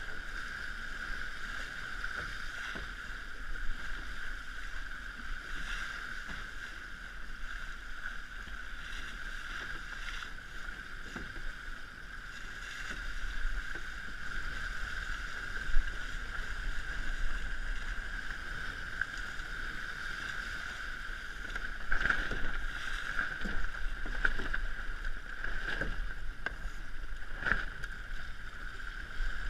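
An RS100 sailing dinghy under way, its hull rushing through choppy water with a steady hiss and low wind rumble, and a few sharper slaps of waves against the hull near the end.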